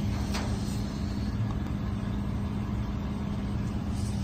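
Steady low machinery hum with a constant drone and a rumble underneath, from running equipment near the engine fan cooler. A brief handling knock about half a second in.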